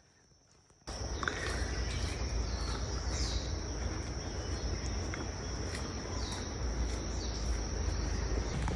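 Insects keep up a steady, high-pitched buzz. About a second in, a loud, low rumbling noise comes in suddenly, with a few short falling chirps above it.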